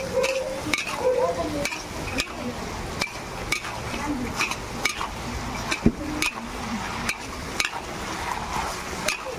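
Metal spatula scraping and clacking against a large metal wok about twice a second as fried potato strips are tossed in sizzling chilli sauce. The sharpest clack comes about six seconds in.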